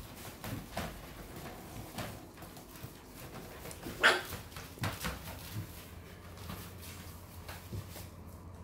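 Yorkshire terrier puppy giving a few short barks, the loudest about four seconds in.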